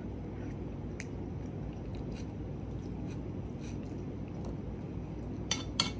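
A man chewing a mouthful of pasta, with a few faint ticks of cutlery. Near the end come two sharp clinks of a metal spoon against a ceramic bowl.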